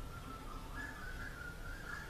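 High whistled notes, held for a fraction of a second each and stepping up and down in pitch, over a steady low rumble.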